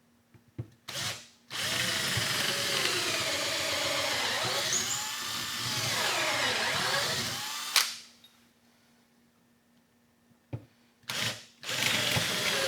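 Handheld power drill boring into a wall stud: two short trigger blips, then a run of about six seconds with the motor pitch sagging and rising as it loads, and after a pause more short blips and the start of another run near the end.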